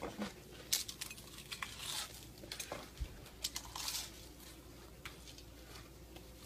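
Dill pickle Pringles chips stacked with jalapeño slices being chewed fast: faint, scattered crisp crunches and clicks that thin out over the last couple of seconds.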